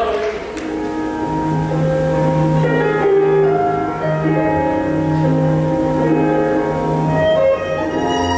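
Argentine tango music playing: piano and bowed strings in long held notes over a steady lower line.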